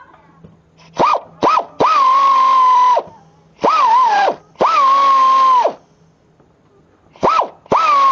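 Pneumatic 1/2 in. air ratchet wrench run in about seven short trigger bursts, the longest about a second each. Each burst whines up in pitch, settles lower as the motor takes the load of the fastener, and drops when the trigger is released.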